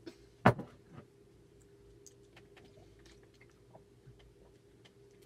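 A person drinking from a cup, with one sharp thump about half a second in, then faint lip-smacking and small mouth clicks while tasting the drink.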